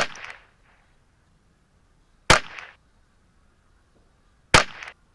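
Three .22 LR rifle shots from a Ruger 10/22 firing Eley Team ammunition, a little over two seconds apart, each a sharp crack with a short echo.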